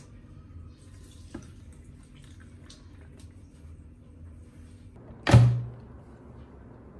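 One heavy thunk with a short low ring, about five seconds in: a plastic blender jar set down onto the blender's motor base. Before it come faint clicks and handling noises.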